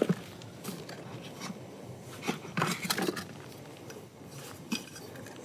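Knocks and clatters of camp gear being handled, a cooler and a pan lid: a sharp knock at the start, a run of clatters about two and a half to three seconds in, and one more knock near the end.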